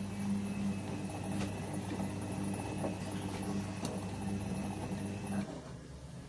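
Washing machine running with a steady motor hum and scattered sharp clicks, the abnormal noise the machine has developed. About five and a half seconds in, the hum drops and quietens.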